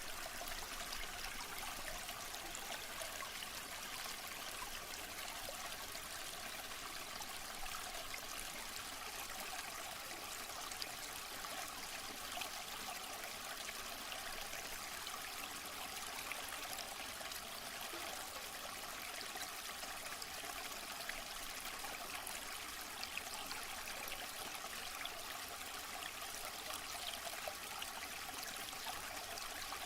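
Waterfall: water falling and splashing in a steady, unbroken rush, mostly high-pitched hiss.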